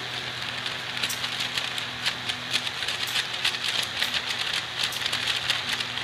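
Homemade table fan on a 12 V DC motor running at speed: a low steady motor hum and rushing air, with a rapid irregular crackling rattle of a paper strip fluttering in the airstream.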